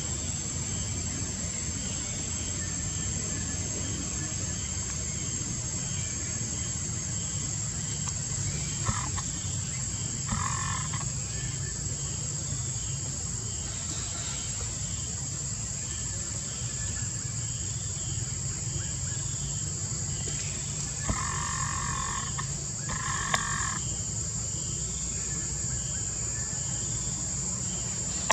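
Forest ambience: a steady high-pitched insect drone and an evenly repeating faint chirp over a low rumble. Four short calls stand out, two about a third of the way in and two more about three-quarters of the way through.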